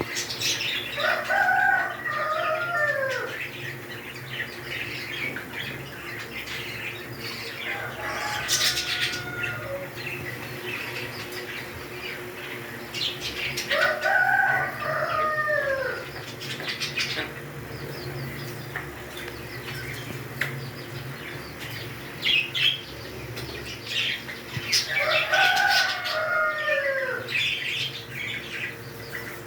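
African grey parrot calling: three long drawn-out calls of about two seconds each, spaced roughly twelve seconds apart, with a shorter call between the first two. Short rustling and clicking sounds fall between the calls.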